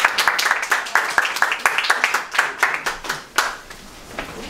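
Audience clapping, thinning out and dying away about three and a half seconds in.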